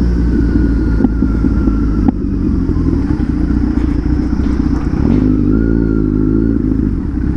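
Kawasaki Z900's inline-four engine running at low revs while the motorcycle rolls slowly. The engine pitch rises and falls briefly about five seconds in.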